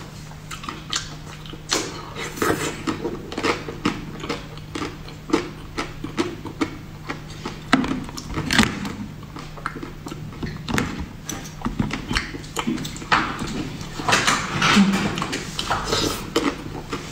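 Close-miked eating sounds of a soft, jelly-coated taro dessert with a cream filling: wet chewing, smacking and slurping clicks, with the light clink of a metal spoon, denser and louder near the end.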